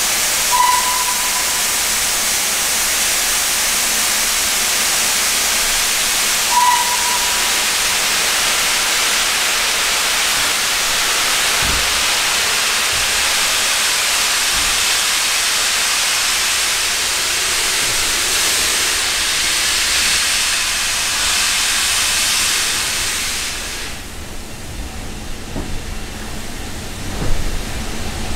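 Steam locomotive letting off steam in a loud, steady hiss that cuts off suddenly about 24 seconds in. Two short whistle toots sound over the hiss, about a second in and again about six seconds later. A few low knocks come near the end.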